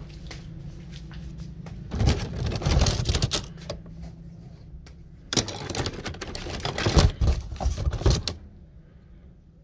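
A heap of loose scissors clattering and jangling in a cardboard box as a hand rummages through them, in two bursts: one about two seconds in, and a longer one from about five seconds in.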